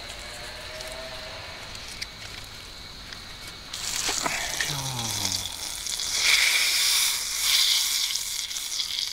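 Butter sizzling as it melts in a hot stainless steel pot over a wood fire, starting suddenly about four seconds in and growing louder toward the end.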